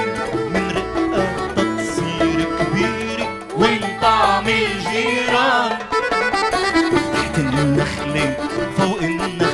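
Arabic ensemble music played live: accordion, buzuq, qanun, bass, piano and hand percussion (riq and tabla), with a man singing into a microphone.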